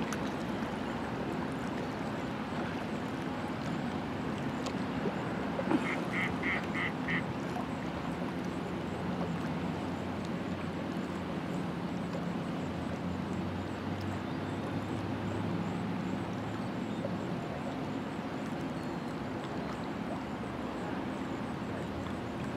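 Steady low hum of distant motors across open water, with a bird's quick run of five short high calls about six seconds in.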